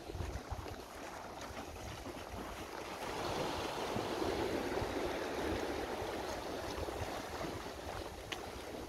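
Outdoor ambience dominated by wind rumbling on the microphone, with a broad rush of noise that swells about three seconds in and slowly fades.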